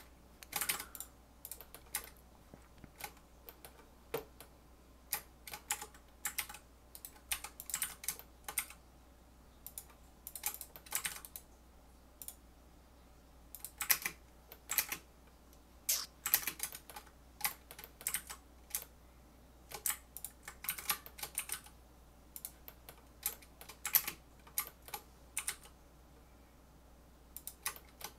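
Computer keyboard keys clicking in irregular bursts with short pauses between, over a steady low fan hum.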